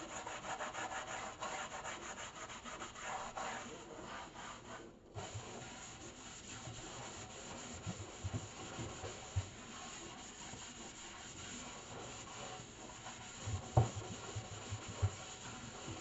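A handheld scrubber rubbing rapidly back and forth over a soapy stainless steel sink, loudest in the first five seconds and softer after. A few dull knocks come in the second half.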